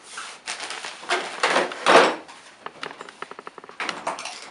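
A refrigerator door and plastic bottles being handled: knocks, clunks and rustles as a gallon jug and a bottle are taken out. The loudest noise comes about two seconds in, and a quick rattle of small clicks follows about a second later.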